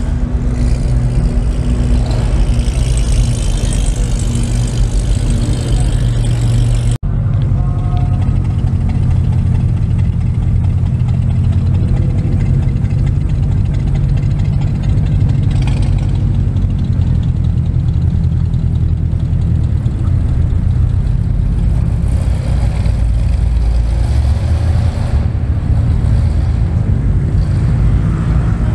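Car engines and exhausts idling with a deep, steady rumble as cars creep along at walking pace. The sound breaks off abruptly about seven seconds in and picks straight up again.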